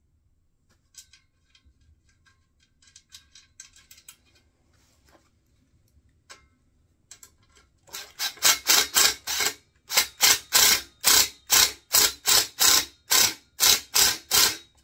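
Ratchet spanner being worked back and forth, about three rasping strokes a second, tightening a nut onto a bolt of a steel wheelbarrow frame. It starts about eight seconds in, with a short break, after several seconds of faint clinks of nuts and washers being handled.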